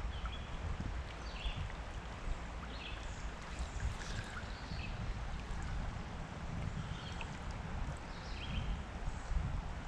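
Creek water rushing and gurgling around the legs of someone wading in a shallow riffle, with a low rumble under it. Short high chirps recur about once a second.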